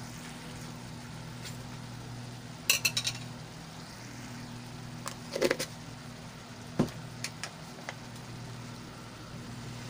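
Scattered clinks and knocks of a metal utensil and kitchen cookware: a quick cluster just under three seconds in, a louder clink about halfway through, and a few light ticks later, over a steady low hum.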